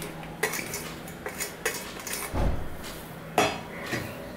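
Stainless steel bowl and plate knocking and clinking together as rice is tipped from the bowl onto the plate and handled. There are several sharp clinks, the loudest about three and a half seconds in, and a dull thump a little after two seconds.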